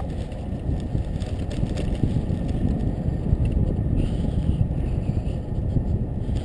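Bicycle riding along a paved path: a steady low rumble of wind on the microphone mixed with tyres rolling on the asphalt.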